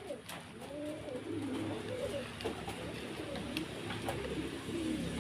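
Birds cooing, several low wavering coos overlapping.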